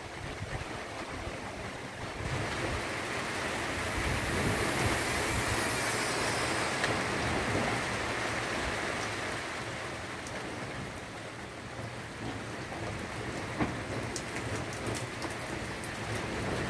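Steady rain falling on plastic sheeting, with no pitched sound in it; it grows louder about two seconds in, and sharper ticks of single drops stand out near the end.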